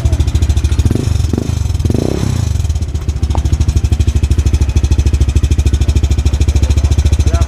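Honda Click V2 scooter engine idling, with a loud, even and rapid exhaust beat.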